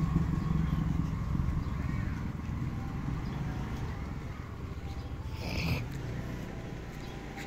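Motorbike engine running low and fading as it moves away, over street noise. About five and a half seconds in there is a brief higher-pitched sound.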